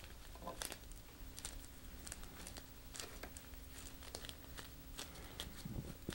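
Faint, irregular crinkling and small clicks of disposable plastic gloves as the fingers press and roll epoxy putty onto a twisted-wire armature.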